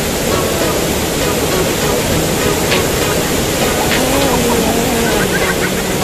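Small waterfall pouring into a rocky pool: a steady rush of falling water, with a couple of brief splashes in the middle.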